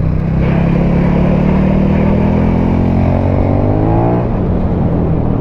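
KTM 1290 Super Duke R's V-twin engine through an Akrapovic titanium slip-on exhaust, accelerating hard under load. Its note rises steadily, then drops sharply about four seconds in.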